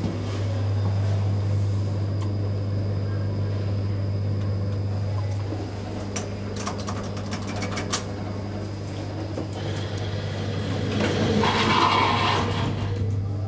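Inside an elevator car: a steady low hum, with sharp clicks as a car-panel button is pressed about six to eight seconds in, and a louder rush of noise near the end.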